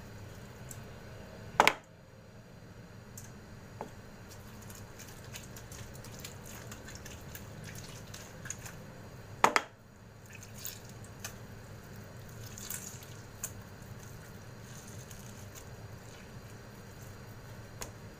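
Lemon juice dripping into a glass bowl of chicken as half a lemon is squeezed by hand, then light rustling and ticking of thin plastic being handled. Two sharp knocks stand out, one near the start and one about halfway through.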